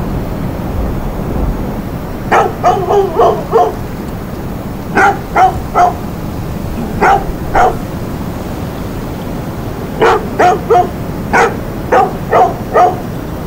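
A dog barking in short runs of two to four barks, with pauses of a second or two between runs, over a steady low background noise.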